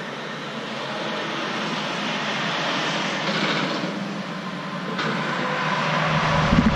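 Steady engine roar of trucks running in the lot, heard from inside the trailer and growing louder toward the open doors; a low rumble comes in near the end.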